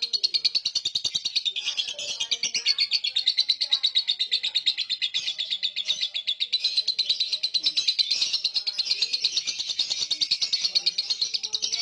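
Lovebird in a long, unbroken 'ngekek': a fast, shrill chattering trill of rapid chirps, many each second, running on without a pause.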